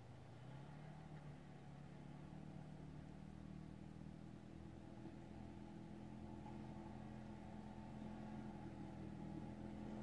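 Engine of a small snowplow vehicle running in the distance as it drives toward the listener, a faint steady hum that slowly grows louder; its pitch rises briefly about half a second in.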